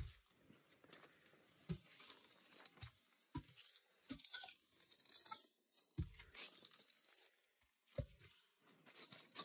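Faint footsteps climbing: a low thud every second or two, with scuffing and crunching of grit underfoot.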